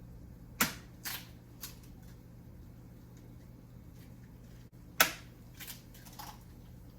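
Sharp taps in two groups of three, each a loud tap followed by two lighter ones, the first group early and the second about five seconds in: eggs being cracked against the edge of a pan or bowl for scrambling.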